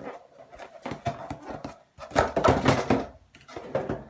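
Hands handling objects, with small clicks and rustling and a louder rustle lasting about a second, starting about two seconds in.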